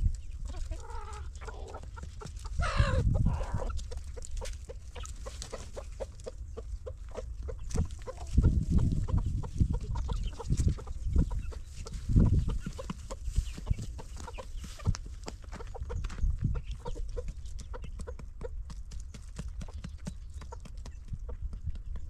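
Chickens clucking, with a few short calls in the first seconds, among many small clicks and knocks. A few louder low rumbles come about three, nine and twelve seconds in.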